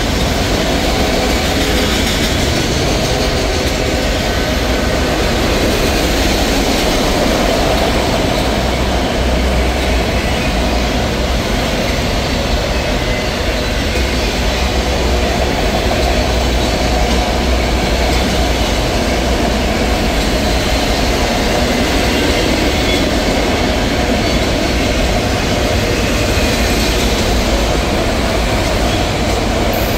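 Freight train of autorack cars rolling past: steady rumble and clatter of steel wheels on the rails.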